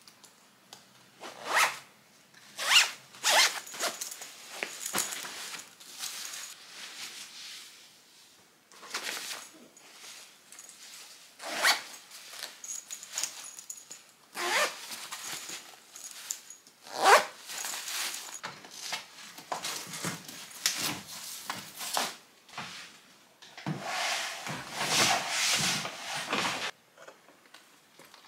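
Zippers on fabric packing cubes being pulled shut in several quick rasping strokes, between rustling of folded clothes and fabric, with one longer zip near the end.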